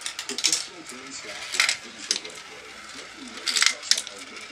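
Glass marbles clicking and clattering down a plastic marble run and into its collecting tray, in several quick clusters of clicks: near the start, twice around the middle, and again near the end.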